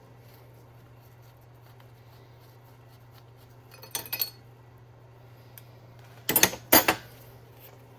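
Metal clinking and rattling in two short bursts, about four and six and a half seconds in, as the bolt extractor socket and the freed bolt are handled, over a faint steady hum.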